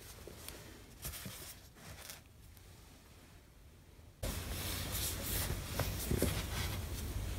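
Hand brushing and rubbing along paperback and hardback book spines on a shelf, with handheld camera handling: soft scraping and rustling over quiet room tone, louder and steadier from about four seconds in.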